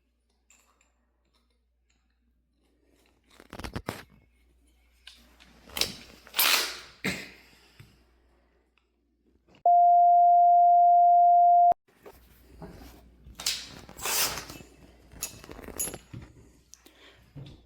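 A steady electronic beep at one pitch, held for about two seconds midway and cut off sharply. Scattered rustling and clattering noises come before and after it.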